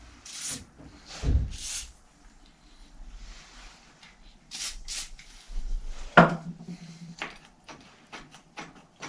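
Short hissing bursts from an aerosol can of long-lasting lubricant sprayed onto a bicycle side-pull caliper brake, about four of them in the first five seconds. A sharp knock about six seconds in, then a run of light metallic clicks as the brake is handled.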